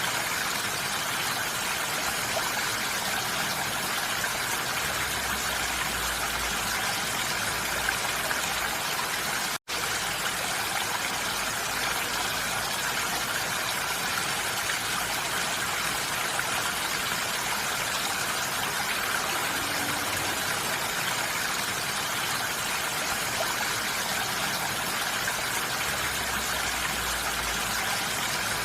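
Rain falling steadily on a roof, a dense, even hiss with no let-up; it cuts out for an instant about ten seconds in.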